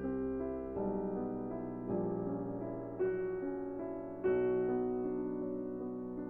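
Background piano music, soft chords struck about once a second and left to ring and fade.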